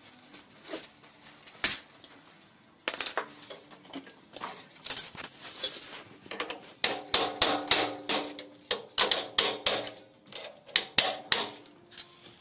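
Hammer blows on a steel part of a moped. A few single blows come first, then a quick run of about three a second with a metallic ring.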